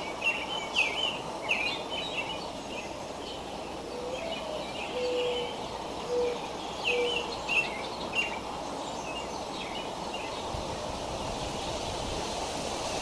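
Birds chirping over and over above a steady outdoor background hiss, with a few short, low, steady notes in the middle. The chirping thins out over the last few seconds.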